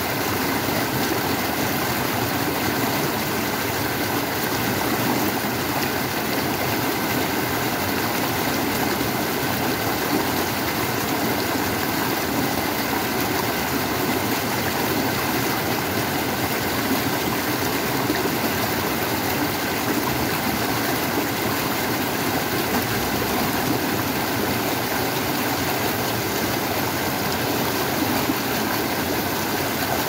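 Mountain stream rushing and splashing over boulders in small cascades, a steady, unbroken sound of fast-flowing water.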